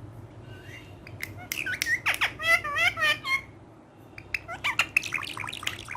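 Pet parrot squawking and chirping in quick, sharp calls starting about a second in, with a warbling trill near the middle, a brief lull, then another run of calls.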